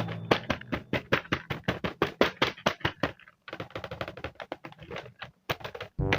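Rapid, irregular clicks and taps of plastic toys and packaging being handled, with a short pause about halfway through.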